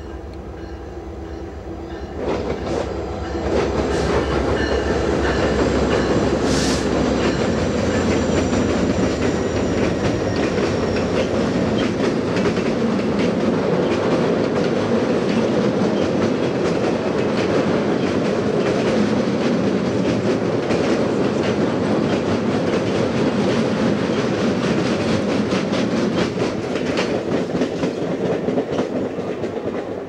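Alaska Railroad passenger train crossing a steel truss bridge on jointed rail. The diesel locomotive's low rumble comes first. From about two seconds in there is a loud, steady rumble of the passing cars, with a clickety-clack of wheels over the rail joints, easing a little near the end.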